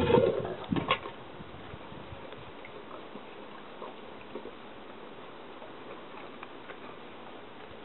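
Dog licking dishes: faint, irregular ticks and taps, after a louder sound fades away within the first second and a sharp tap about a second in.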